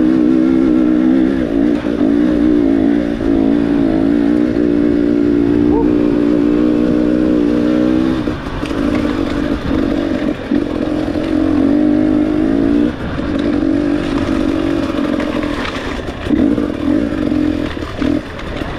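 Dirt bike engine under way on a rough trail. It holds a steady throttle for the first eight seconds or so, then goes on and off the throttle in short pulls with brief dips.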